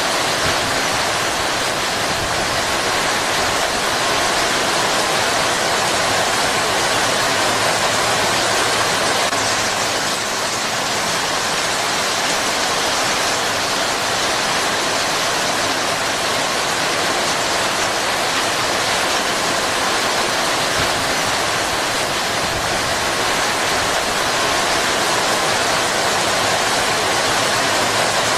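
Heavy rain pouring steadily, a dense, even hiss without breaks.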